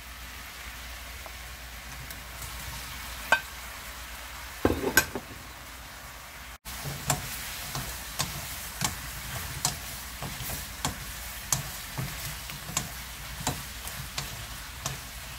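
Soy-sauce glaze sizzling and bubbling at a boil in a nonstick wok. Past the middle, tofu cubes are stirred in it with wooden spoons, giving regular light knocks against the pan about one and a half times a second over the sizzle.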